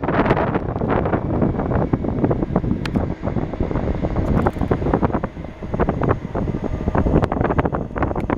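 Strong gusty wind buffeting the camera microphone in loud, irregular blasts, with a low rumble and a faint steady tone underneath.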